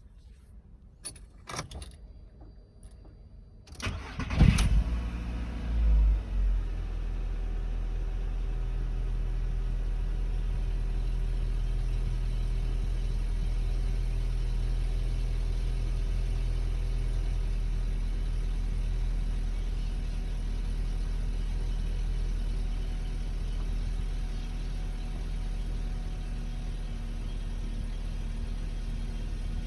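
A few faint clicks, then a VW Bora's engine cranks and catches about four seconds in, flares briefly and settles into a steady idle with a faint steady whine. This is a cold first start, and the idle carries the noise that appears on the first start and stops when the A/C is switched on.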